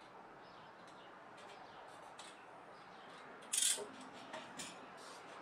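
A knife cutting vegetable-tanned leather on a cutting mat: faint scratchy ticks, then a short, sharp scrape about three and a half seconds in as a tool is handled, the loudest sound.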